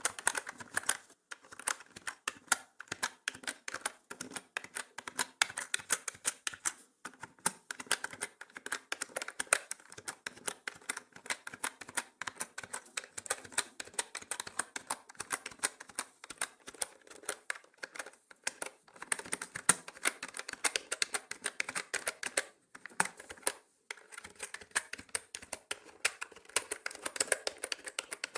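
Continuous fast typing on a mechanical keyboard: a dense stream of key clicks and clacks with brief pauses a few times.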